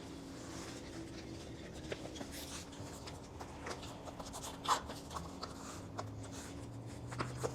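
Faint rubbing, scratching and light clicks of hands working a bicycle tire and inner tube back onto the wheel rim, over a steady low hum.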